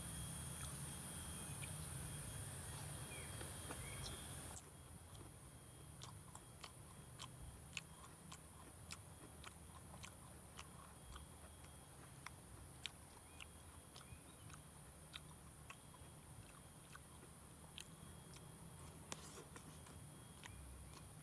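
A person eating, with faint chewing and many small crisp clicks of biting and mouth sounds. For the first few seconds a steady high hiss sits under it, then cuts off abruptly.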